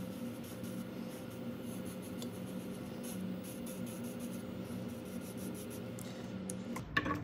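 Avalico electric nail drill running at a steady speed with a bullet-shaped diamond bit, pushing back and lifting the cuticle: a constant motor hum at one pitch over rough scraping. The hum stops near the end.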